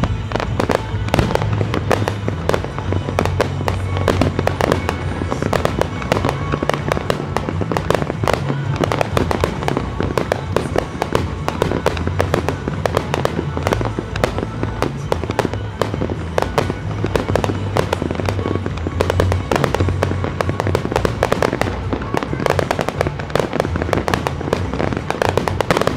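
Fireworks display: a rapid, continuous barrage of shell bursts and crackling, many reports a second, with music playing underneath.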